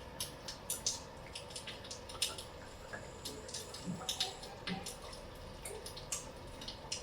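Water in an ultrasonic fireplace-humidifier's reservoir, spattering and dripping in irregular quick ticks, over a faint steady hum.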